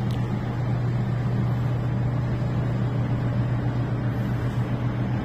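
A large tanker's engine giving a steady, low droning hum as the ship passes, with an even rumble beneath it.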